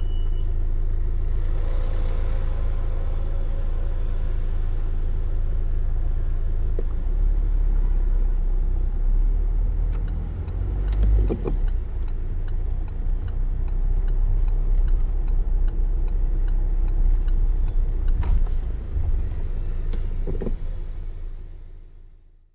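A car driving on a road, with a steady low engine and road rumble. In the second half there are scattered light clicks and a few louder knocks. The sound fades out near the end.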